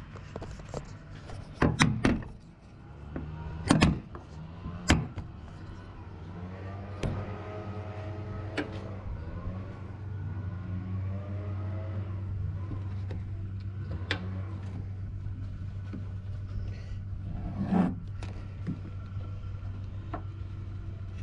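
Hands working a spoiler strip onto a pickup's steel tailgate while peeling its adhesive tape backing: a few sharp knocks and thumps, several close together in the first five seconds and more spread out after, over a steady low hum.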